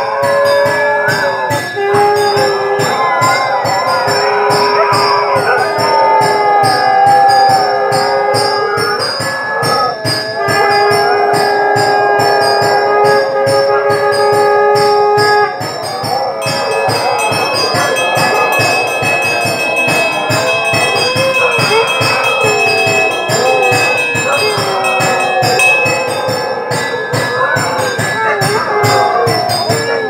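Temple conch shell (shankh) blown in long held notes, several times over, above rapid continuous ringing of hand bells, with a wavering howl-like cry weaving through, the dog howling along to the conch.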